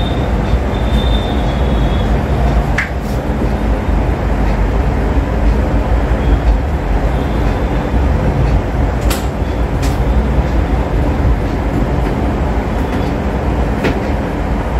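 A steady, loud, deep background noise with no change in level, and a few sharp clicks and taps from the LCD panel and its plastic frame being handled as the panel is fitted into its assembly.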